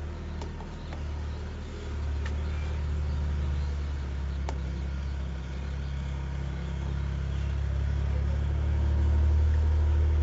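A steady low rumble that grows louder near the end, with a few faint clicks.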